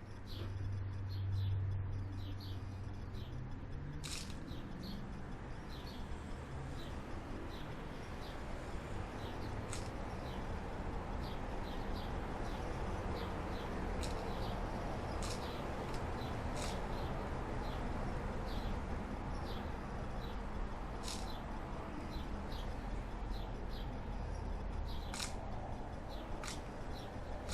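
Small birds chirping: many short, high chirps throughout, over a steady low background hum.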